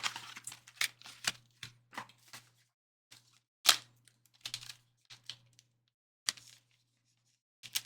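Plastic packaging of a trading card box being handled and torn open: irregular crinkling and clicking, with one sharp snap a little under four seconds in.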